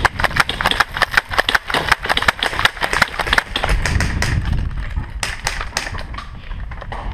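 Leaves and branches crackling and brushing close against the camera as someone pushes through dense bushes: a fast, irregular run of crackles that eases after about three and a half seconds, then another short flurry near the end.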